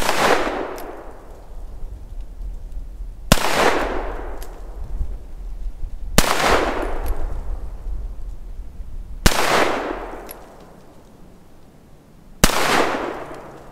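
Ruger Security Six revolver firing .357 Magnum rounds: five shots about three seconds apart, each a sharp crack followed by an echo that dies away over a second or two.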